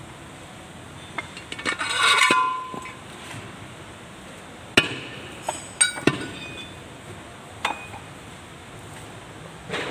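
Metal clinks and knocks as a tractor rear-axle housing and loose parts are handled: a scraping rattle about two seconds in, then several sharp metallic knocks over the next few seconds.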